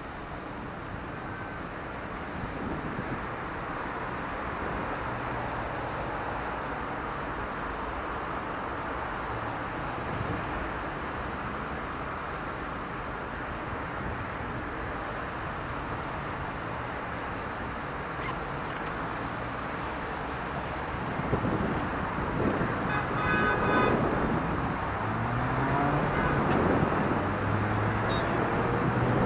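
City street traffic: a steady wash of cars passing. About three-quarters of the way through it grows louder as a nearer vehicle comes by, with a rising engine note.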